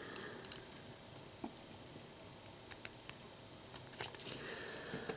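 Scattered light metallic clicks and taps from the small parts of a Lockwood oval pin-tumbler cylinder being handled and fitted back together during reassembly.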